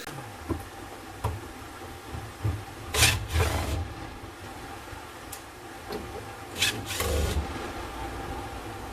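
Scattered handling noises from work on a car's wiring harness: light rustling and a few small clicks, with two short scraping bursts, one about three seconds in and another near seven seconds.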